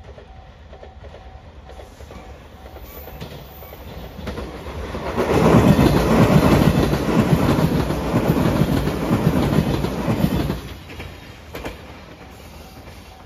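JR 8000 series electric limited express train passing close by: the sound builds about four seconds in, stays loud with a dense rattle for about six seconds, then drops away abruptly as the train clears.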